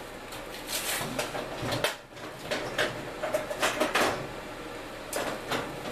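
Handling noise: irregular clicks, light knocks and rustling as parts are moved about and fitted.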